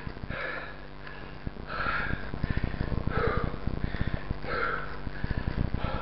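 A mountain biker breathing hard on a steep climb, a heavy breath about every second and a half, over a fast steady clicking rattle.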